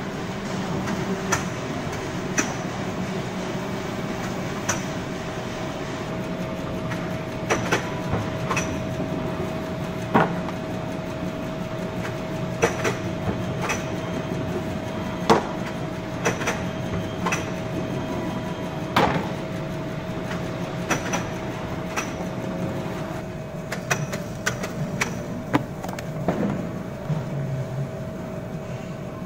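Tape-applicator machine with a roller conveyor table running: a steady mechanical hum with a steady tone, with sharp clicks and clacks at irregular intervals as the applicator heads work and the box blanks move along the table.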